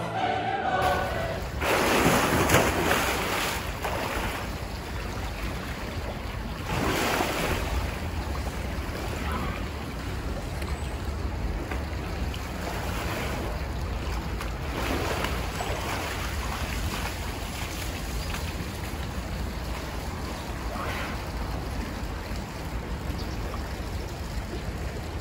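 Choral music cutting off in the first second, then a steady outdoor rushing noise with a low rumble, swelling louder about two seconds in and again around seven seconds.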